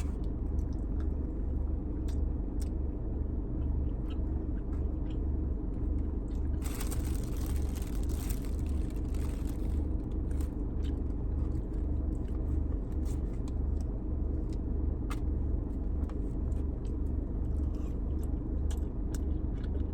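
A person eating, with faint chewing and scattered small clicks over a steady low rumble. A noisy rustle lasts about three seconds near the middle.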